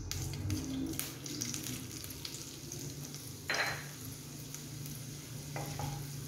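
Cumin seeds sizzling and crackling in hot oil in a steel kadai as a tadka is tempered, with a brief louder hiss about halfway through. A wooden spatula starts stirring the seeds near the end.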